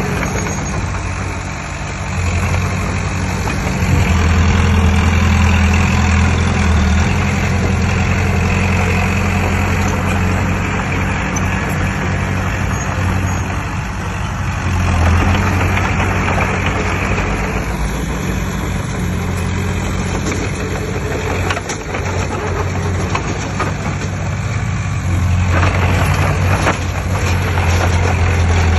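Heavy diesel engine of earthmoving machinery running steadily. Its low drone swells louder several times, about four seconds in, around the middle and near the end.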